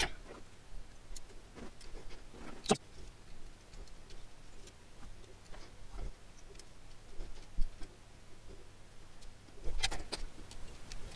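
Scattered small clicks and taps of electronic components and their wire leads being handled and pushed into a circuit board held in a helping-hand clamp. There is a sharper knock about two and a half seconds in and a few more near the end.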